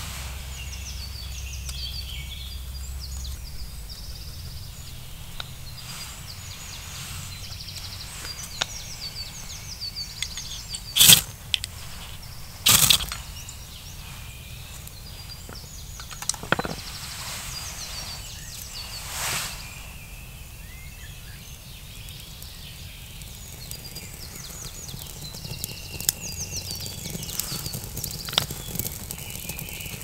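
Small songbirds chirping and singing on and off throughout, typical of the forest waking up in the morning. Several loud sharp cracks break in, the two loudest about 11 and 13 seconds in, with weaker ones near 17 and 19 seconds.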